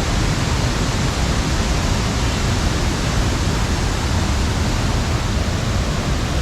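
Waterfall in heavy flood flow after monsoon rain: a loud, steady rush of falling water.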